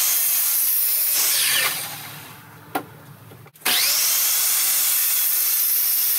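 Electric chop saw (miter saw) cutting a pressure-treated 2x4: the motor runs loud, then winds down with a falling whine about a second and a half in. After a click it is switched on again a little past halfway, whining up to speed and cutting on at full noise.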